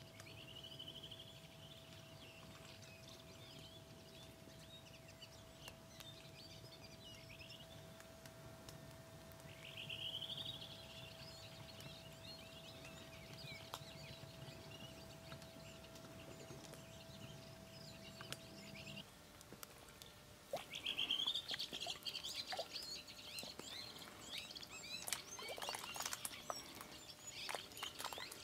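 Wild birds calling: short, high, arching calls every few seconds, with chirping that grows busier in the last third. A steady low hum underneath stops about two-thirds in, and a few sharp clicks come near the end.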